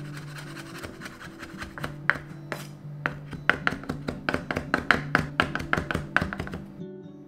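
Chef's knife chopping shiso leaves on a wooden cutting board: a run of quick blade knocks that grows louder and faster from about three seconds in, at about four a second, then stops just before the end. Background music plays under it.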